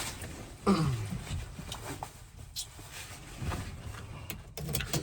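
Faint rustling and a few sharp clicks from handling things inside a truck cab, with a short low sound that falls in pitch under a second in.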